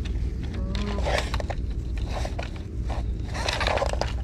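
Bursts of rustling and scraping as a bag of fishing rods is handled in long grass, a little after one second, around two seconds and again near the end, over a steady low rumble of wind on the microphone.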